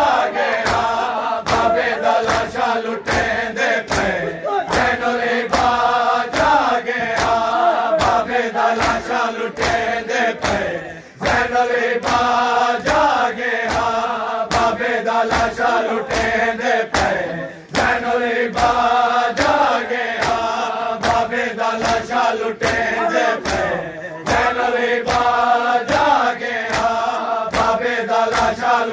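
A crowd of men chanting a mourning lament (nauha) in unison while beating their chests with their hands (matam), the strikes landing in a steady rhythm under the voices. The chanting and beating drop away briefly twice, about eleven and seventeen seconds in.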